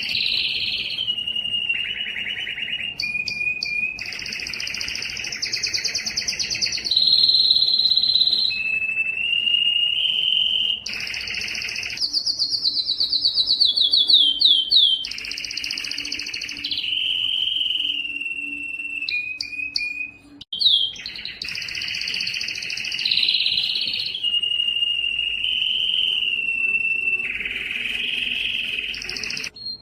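Yellow domestic canary singing a long, continuous song of rolling trills and held whistled notes. About halfway through comes a fast trill of rapid notes falling in pitch. The song breaks off briefly around two-thirds of the way in.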